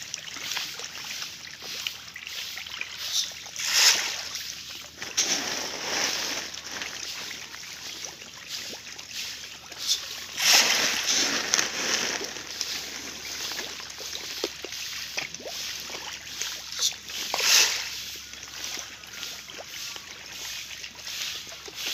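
A dense school of fish thrashing and splashing at the water surface while competing for food, a continuous churning with louder splashes about four, ten and seventeen seconds in.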